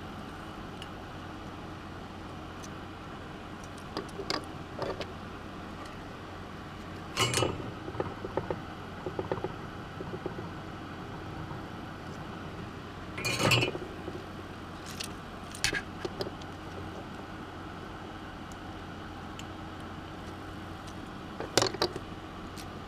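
Small parts of a synth module being handled: a handful of short clicks and clinks as knobs are fitted onto potentiometer shafts through the front panel, over a steady background hum.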